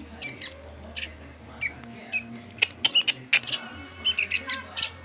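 Young songbirds giving short, high chirps, typical of chicks begging while being hand-fed. A quick run of sharp clicks comes about halfway through.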